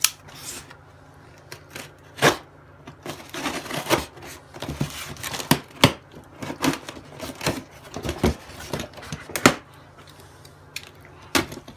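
Knife slitting packing tape and cardboard on a box, with irregular sharp clicks, scrapes and cardboard rustling.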